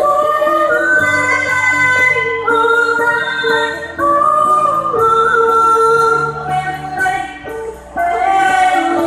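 A girl singing a traditional East Kalimantan folk song in long, held notes that step from pitch to pitch, over the repeating plucked figure of a sape, the Dayak boat lute.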